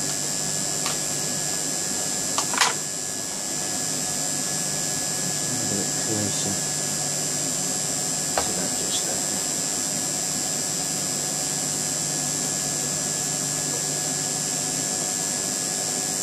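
A steady electrical hum with a constant high whine from workshop equipment, with a few light clicks and knocks as the glass tube and its metal clamp are handled and repositioned on the stand, the sharpest about two and a half seconds in.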